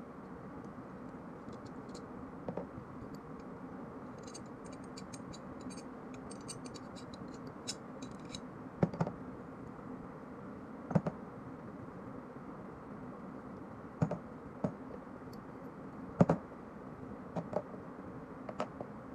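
Steel parts of a TT 30 bore pistol being handled during field stripping: a run of fine metallic clicks and scratching, then about nine sharp, separate metal clacks, over a steady low hum.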